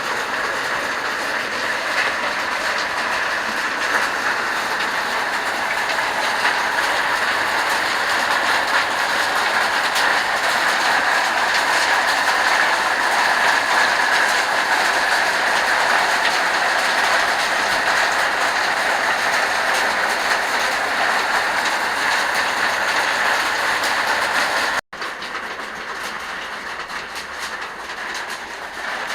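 Waterfall running, a steady rushing of falling water, with its flow slowing down. About 25 seconds in the sound cuts off for an instant and resumes as a quieter rush.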